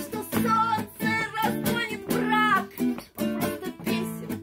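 Acoustic guitar strummed in a steady rhythm, about three strokes a second, with a voice gliding up and down in pitch over it.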